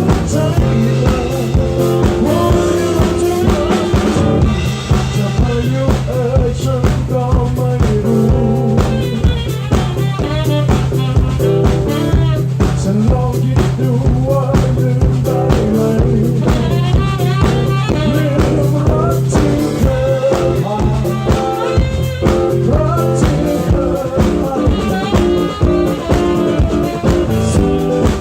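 Band music with a steady drum-kit beat and bass, and a wavering melodic lead line over it; no sung words are picked out.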